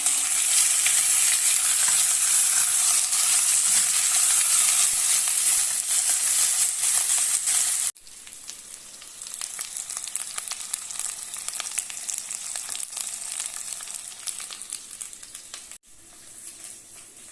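Pieces of beef rib sizzling in hot olive oil in an enamelled cast iron pan as they are browned on all sides. The frying is loud for the first half, then cuts suddenly to a quieter sizzle about eight seconds in.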